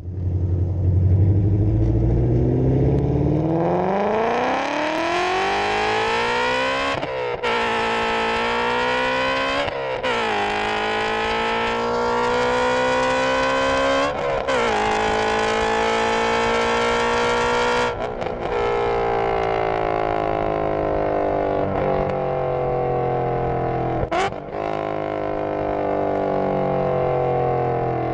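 2017 Shelby GT350's 5.2-litre flat-plane-crank V8 heard at its exhaust tips under wide-open throttle: revs climb steadily, then the pitch drops and climbs again at three quick upshifts. The throttle then lifts and the engine note falls slowly as the car coasts, with one brief click near the end and road and wind noise underneath.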